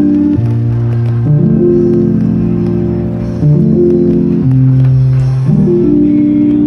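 Background music: sustained keyboard chords that change every second or two.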